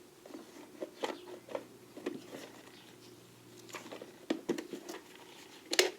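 Small metal oilers clicking and tapping as they are handled, light irregular clicks spread through, over a faint steady hum.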